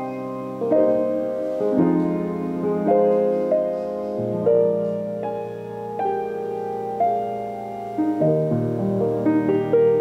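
Piano playing a slow, sustained passage of chords and melody, with a new note or chord struck about once a second.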